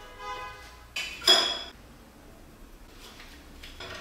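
Steel parts clinking against each other and the vise, one sharp clink about a second in that rings briefly, preceded by a short squeaky tone and followed by a few light taps.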